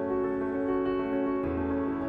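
Soft instrumental background music of sustained held chords, changing to a new chord about one and a half seconds in.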